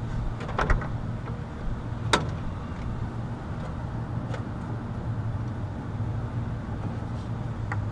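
Small metallic clicks of pliers and spade connectors on the wiring of an air conditioner's capacitor, one sharp click about two seconds in and a few fainter ones, over a steady low mechanical hum.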